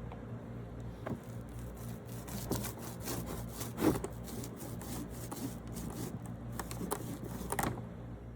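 Wood rubbing and scraping with scattered knocks, as of wooden hive parts being handled, over a steady low hum.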